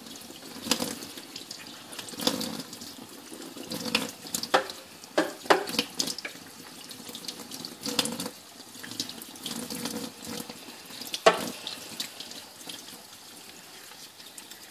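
Kitchen tap running into a stainless steel sink as gloved hands rinse and rub a cuttlefish under the stream, with irregular splashes and wet handling sounds.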